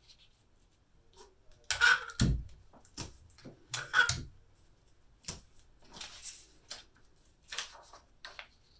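Sheets of thin printer paper rustling and sliding across a cutting mat as they are handled and lined up, in a string of short, uneven rustles. The loudest come about two and four seconds in, with a soft thud just after the first.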